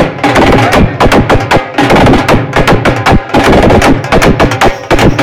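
Dhol drums beaten with sticks, playing a loud, fast, unbroken dance beat of closely packed strokes.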